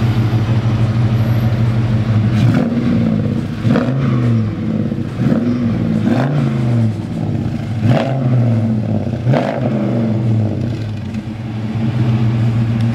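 Fuel-injected LS1 V8 in a 1970 Pontiac GTO idling, then revved in quick blips about six times, the pitch jumping up and falling back after each. It settles back to a steady idle near the end.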